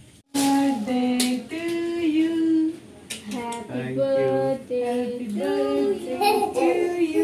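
Women and girls singing a birthday song together, starting suddenly about a third of a second in.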